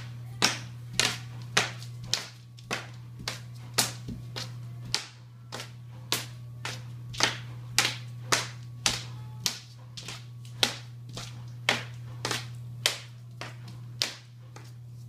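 A steady run of sharp percussive hits, about two a second, over a steady low hum.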